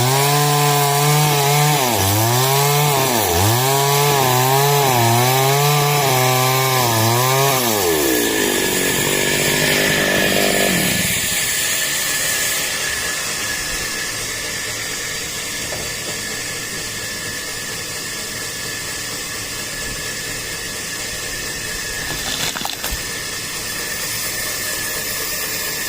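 Stihl chainsaw cutting wood, its engine note dipping about once a second as it bogs under load, then falling and dying away about ten seconds in. A steady hiss with a faint high whine remains afterwards.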